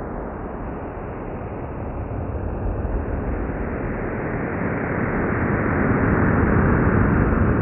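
NASA's sonification of the Event Horizon Telescope image of the Sagittarius A* black hole: a dense wash of noise with no clear tune. It swells louder from about two seconds in as the clockwise radar-like scan passes brighter parts of the ring, since loudness stands for the brightness seen around the black hole.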